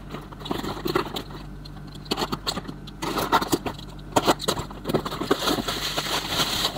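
Cardboard box and plastic packaging being handled and opened by hand: irregular scrapes, rustles and small clicks, over a steady low hum.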